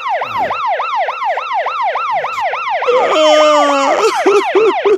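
Emergency-vehicle siren on a fast yelp, about four rising-and-falling wails a second. A steady held tone joins it about three seconds in for about a second, and near the end the wails drop lower and shorter.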